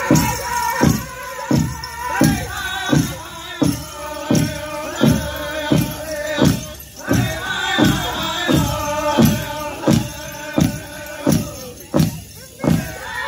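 Powwow drum group playing a Men's Chicken dance song: a big drum struck in a steady beat, about three beats every two seconds, under group singing. The singing drops out briefly twice while the drum keeps going.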